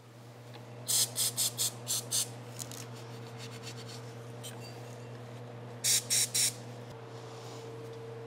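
Short hissing squirts from an aerosol spray can: about six quick squirts a second in, then three more about six seconds in, over a steady low hum.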